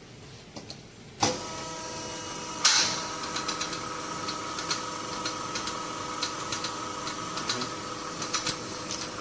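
A hose-making bench machine is switched on about a second in and runs with a steady mechanical hum. About a second and a half later there is one sharp clank, followed by scattered light clicks.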